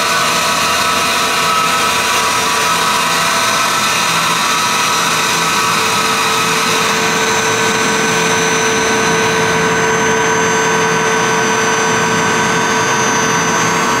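Newly installed screw compressor of a York YCIV air-cooled chiller running steadily just after start-up: a constant mechanical drone carrying several held tones, with a thin high whine joining about halfway through.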